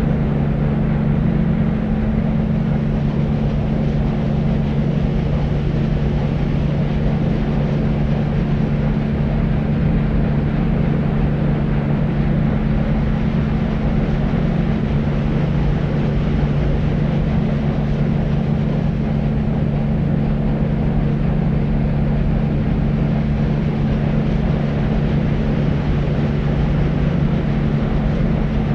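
Deep white noise: a steady, even, low-pitched hiss that never changes.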